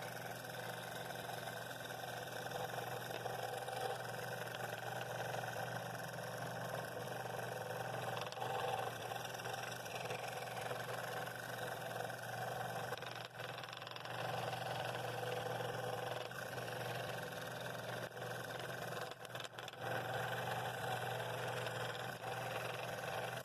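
Scroll saw running steadily, its fine blade cutting a ring out of a glued-up poplar and walnut blank.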